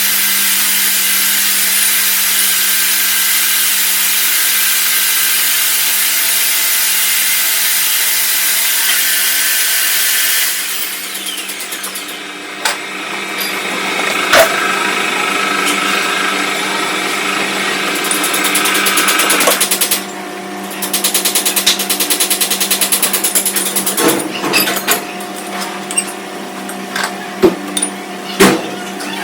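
Metal lathe running with a steady motor hum while a tool cuts the workpiece, a loud hissing cut for about the first ten seconds. After that the cutting sound drops and comes and goes, with scattered sharp clicks and knocks near the end.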